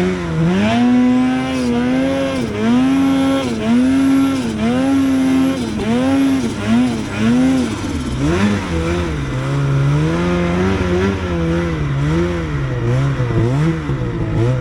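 Snowmobile engine revving up and down over and over, its pitch climbing and dropping about once a second, settling lower and more uneven in the second half.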